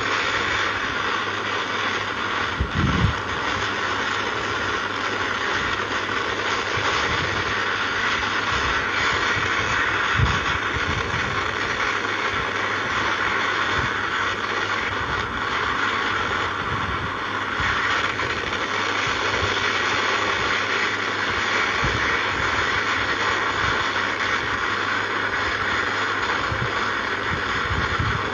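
Hurricane wind blowing hard and steadily, with gusts thudding against the microphone now and then, strongest about three and ten seconds in.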